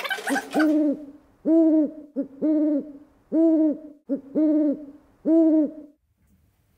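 A rhythmic run of about eight hooting, horn-like notes, each a rounded two-tone toot, with short notes leading into longer ones, stopping near the end.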